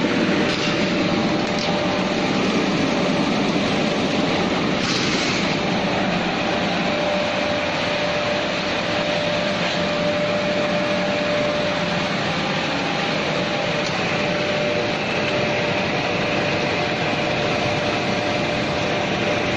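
Horizontal glass washing machine running: a steady mechanical noise with a faint steady hum, and a short hiss about five seconds in.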